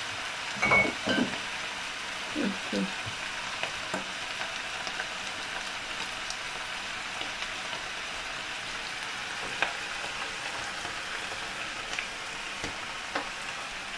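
Chopped cabbage sizzling steadily in an open frying pan, with a few light clicks and knocks.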